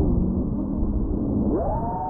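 FPV quadcopter's brushless motors humming low at reduced throttle, then rising sharply into a high whine about one and a half seconds in as the throttle is punched, with wind rumble over it.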